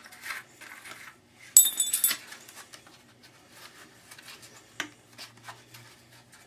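Metal tools clinking and scraping against the brass fitting on an aluminum car radiator as it is worked loose. There is one sharp, ringing metallic clink about a second and a half in, and scattered lighter clicks and scrapes around it.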